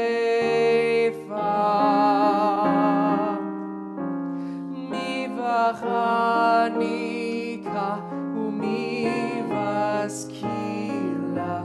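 Instrumental music: piano chords under a slow, sustained melody line with a light vibrato, the notes changing about once a second.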